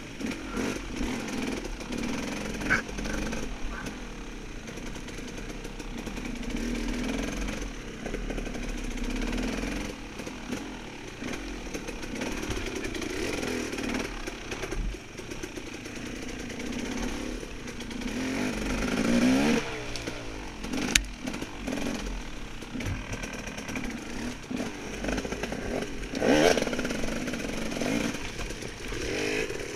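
Off-road dirt bike engine running on a woods trail, its pitch rising and falling as the throttle opens and closes, with a clear rev a little past halfway.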